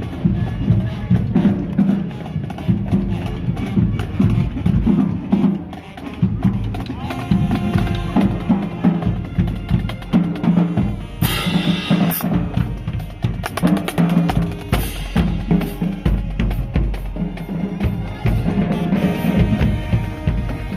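Marching band drumline playing a cadence: rapid snare drum strokes and rimshots over pounding bass drums, with a bright crash about eleven seconds in.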